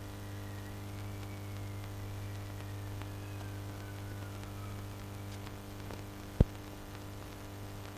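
Faint whistling wind, its pitch slowly rising and falling, over a steady low hum. A single sharp click comes about six and a half seconds in.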